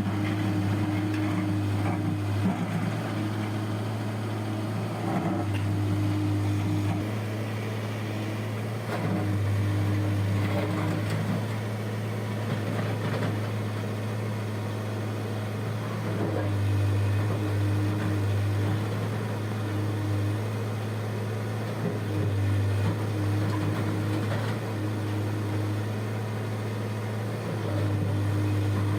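Heavy diesel engine of a backhoe loader running at work, a steady low hum that swells louder and eases back every few seconds as it works.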